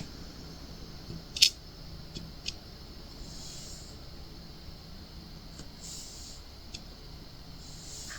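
A few light clicks and taps of a diamond-painting pen picking up resin drills and pressing them onto a hard acrylic ornament, the sharpest about a second and a half in, over a faint hiss.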